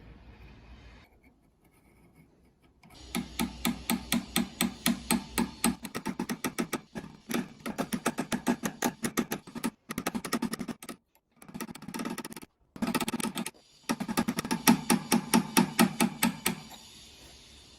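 A hammer striking metal in a fast, even rhythm, several blows a second, with a few short pauses. This fits work on a rusty antique wrench during its restoration.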